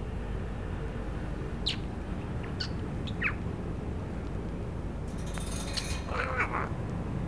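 Birds chirping: a few short chirps that fall in pitch two to three seconds in, then a harsher, noisier call about six seconds in, over a steady low hum.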